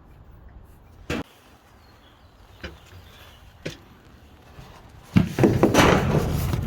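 Sharp knock against a garage door, two lighter knocks, then from about five seconds in a loud clattering rattle as the door is worked from outside to reach its emergency release cable.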